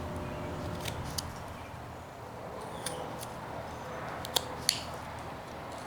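Carving knife slicing small chips from a wooden carving: a few short, sharp clicks, some in quick pairs, over a low background hiss.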